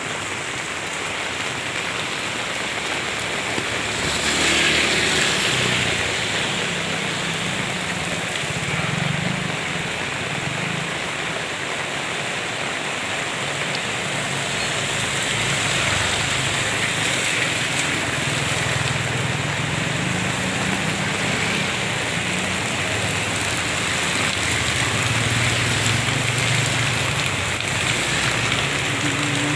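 Steady rain falling, with a low rumble underneath that swells and fades.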